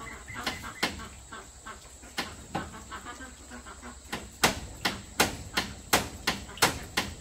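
Repeated sharp strikes of a tool on wood: a few spaced blows at first, then a steady run of about two to three blows a second from about four seconds in.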